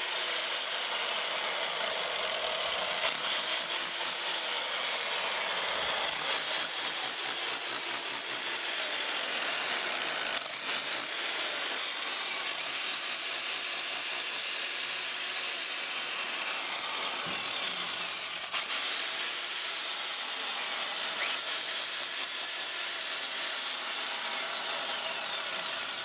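Electric rotary hammer with a pointed chisel bit, hammering without a break into a stone wall to chip out the lime mortar between the stones.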